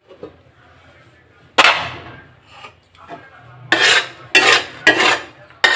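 A series of sharp scraping clatters from kitchenware, each fading within half a second: one about one and a half seconds in, then four in quick succession near the end.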